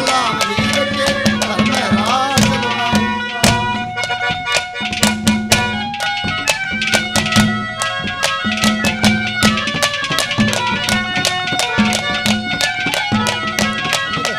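Instrumental interlude of Haryanvi ragni folk music: fast hand-drum strokes under a held, stepping melody, with a singer's voice trailing off in the first couple of seconds.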